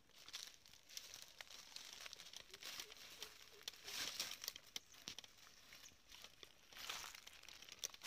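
Faint crunching and crackling rustle of dry leaf litter under a person's footsteps, irregular, with louder patches about four and seven seconds in.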